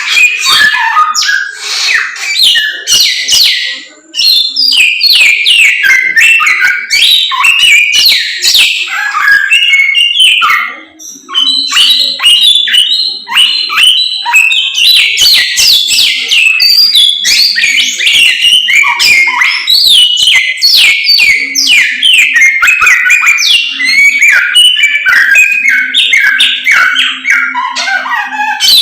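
Samyong songbird in full song: a long, rapid stream of loud whistles and chirps, breaking off briefly about 4 and 11 seconds in.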